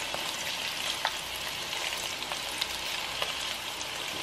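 Meatballs frying in hot grease in a nonstick skillet: a steady sizzle with scattered small crackles and pops.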